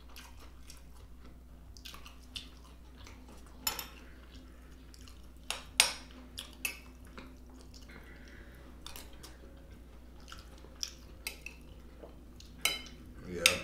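Metal utensil clinking and scraping against a plate while eating, as scattered short clicks a second or two apart, the sharpest a little before six seconds in.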